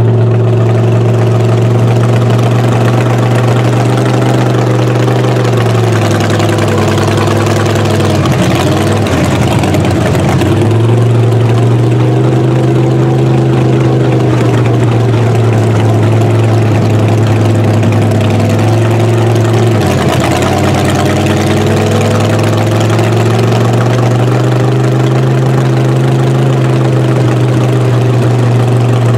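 Mega truck's engine heard from inside the cab, running steadily as the truck drives along. Its pitch drops and climbs back twice, about eight and twenty seconds in.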